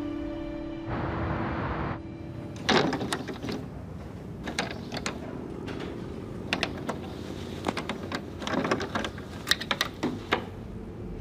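Scattered clicks, knocks and rattles of a glass-paned wooden door's lock and latch being worked from outside as the door is forced open.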